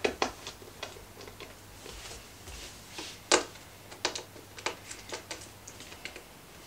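Furniture cam locks being twisted tight with a small screwdriver: a string of irregular light clicks, the sharpest about three seconds in.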